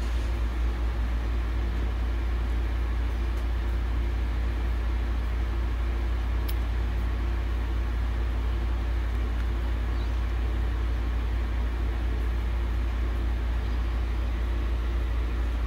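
Steady low rumble with a faint even hum from running machinery, with a single faint click about six and a half seconds in; the snake's constriction itself makes no audible sound.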